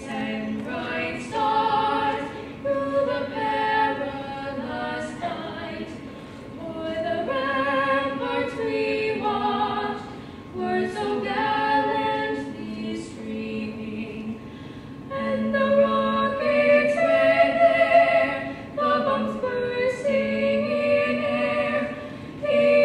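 High school concert choir singing a national anthem, mixed voices holding notes in phrases with short breaths between them.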